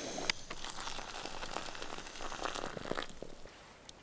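Crinkling and scattered light clicks and taps of camp cooking gear being handled, with a sharp clink about a third of a second in, over a faint hiss that fades away.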